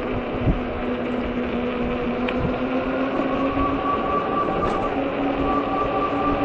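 Ecotric 48 V fat-tire e-bike under way: a steady whine from its hub motor and tyres, rising slightly in pitch, over wind rumble on the microphone.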